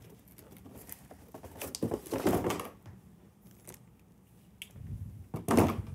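Cardboard box being handled and moved aside: rustles and scrapes of the cardboard, a sharp click past the middle, and a louder rustle near the end.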